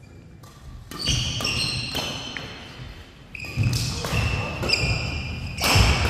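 Badminton doubles rally: several sharp racket strikes on the shuttlecock, a second or more apart, the last and loudest near the end, with shoes squeaking on the court mat between them.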